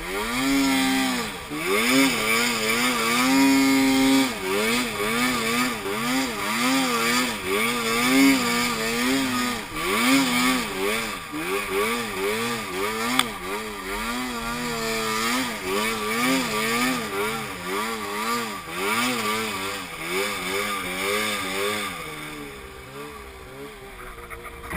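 Arctic Cat M8 snowmobile's 800 cc two-stroke twin revving up and down over and over as it is ridden through snow, about once a second, then easing off to a lower, quieter run near the end.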